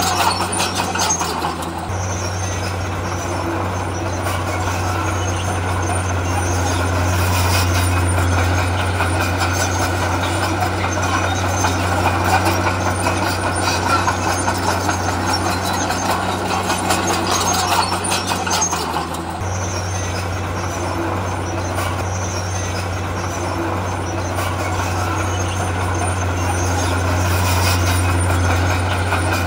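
Heavy diesel earthmoving machinery running steadily, a deep engine hum under a dense mechanical rumble. The sound shifts abruptly about two seconds in and again after about nineteen seconds.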